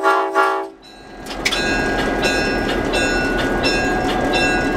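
The Nathan P5 chime air horn of an EMD GP38-3 locomotive sounds a chord and cuts off about a second in. After it comes the locomotive's steady running noise, heard from inside the cab.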